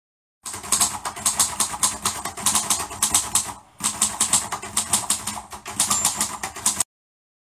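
Rapid, even mechanical clicking, about five or six sharp clicks a second, starting and stopping abruptly with a brief pause midway.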